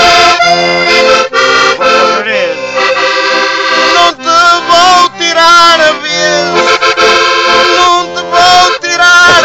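Button accordion playing a desgarrada tune: loud chords and melody, with a few brief breaks in the sound.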